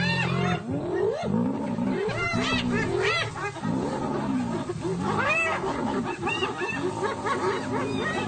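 A clan of spotted hyenas mobbing lions: many overlapping calls that rise and fall in pitch, with deep lion growls underneath.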